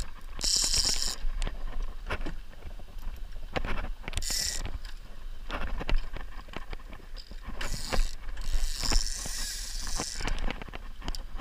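Fishing reel on a trolling rod clicking and ratcheting irregularly while a hooked salmon is played. Several short bursts of high hiss come through, near the start, about four seconds in, and again later.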